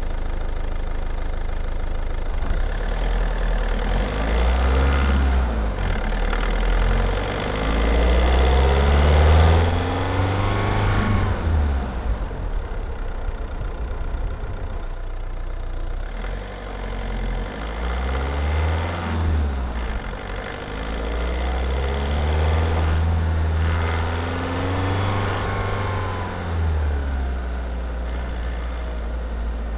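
Skoda Octavia 1.6 TDI (CAYC) four-cylinder diesel engine, heard close from under the bonnet while driving. Its pitch rises as the car accelerates and drops back, several times over.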